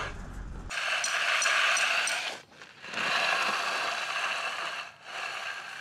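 A hand finishing tool scraping across setting concrete in three long strokes, each about two seconds.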